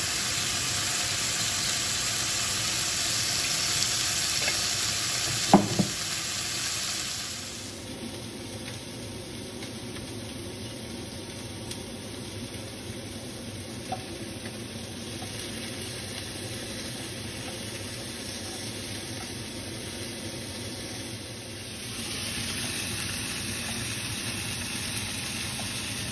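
Marinated chicken strips sizzling in a frying pan, with two sharp clicks about five and a half seconds in. The sizzle falls away after about seven seconds to a quieter steady hiss, which grows louder again near the end.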